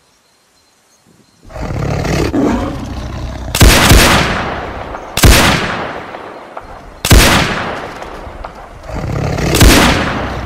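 Several rifle shots, roughly a second and a half to two and a half seconds apart, each with a long fading tail. They sound over a continuous rough noise that starts about a second and a half in.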